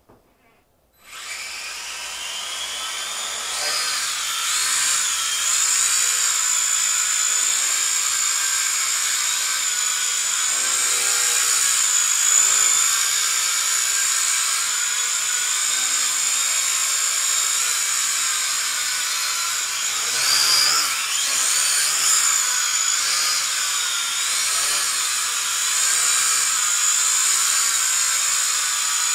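Tiny brushed-motor quadcopter whining at a high pitch, starting up about a second in, the pitch wavering up and down with the throttle.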